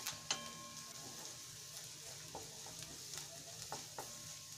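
Chopped onion, green chilli and beans sizzling softly in hot oil in a metal kadhai, stirred with a flat spatula that scrapes along the pan and knocks against it a few times, the pan ringing faintly after one knock.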